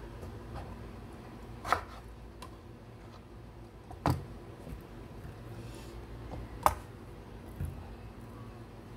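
Three sharp knocks of a chef's knife on a wooden cutting board, roughly two and a half seconds apart, with a few fainter taps between, over a low steady hum.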